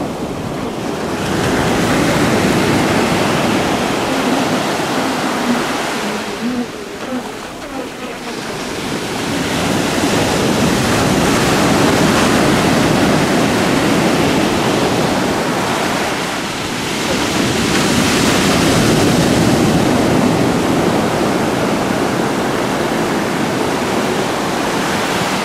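Ocean surf breaking and washing up the beach, a loud rushing that swells and eases in three long surges.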